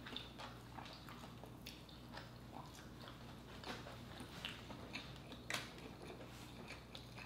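Faint close-up chewing of lobster meat: soft, irregular mouth clicks and smacks from people eating.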